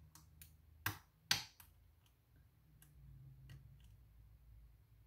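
Metal lock pick and tension wrench working the pins of a pin-tumbler challenge lock: a series of small, sharp metallic clicks, two louder ones about a second in and fainter ones scattered after.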